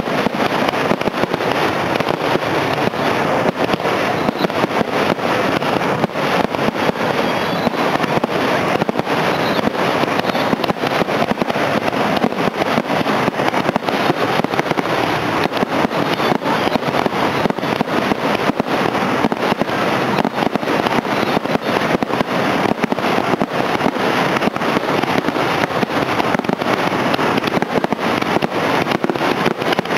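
A dense barrage of aerial firework shells launching and bursting in rapid succession, the bangs overlapping into a continuous volley with no pause.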